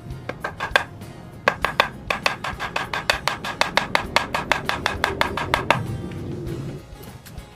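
Machete blade chopping at a bamboo pole in quick repeated strokes: a few scattered chops, then a fast run of about five a second that stops near the end.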